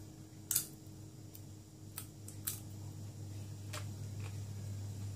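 About half a dozen short, sharp clicks, the loudest about half a second in, over a steady low hum.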